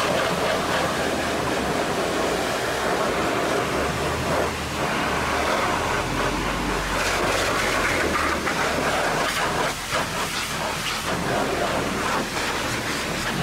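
High-pressure water jet blasting mud off a truck's wheel, hub and leaf springs: a loud, dense hiss and spatter that swells and dips as the jet moves over the metal and tyre.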